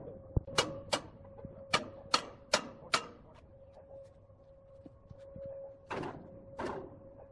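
Sharp metallic knocks and taps as a large octagonal timber block is set into a wood lathe: a dull thud, then six quick sharp strikes about half a second apart, and two duller knocks a few seconds later, over a steady hum.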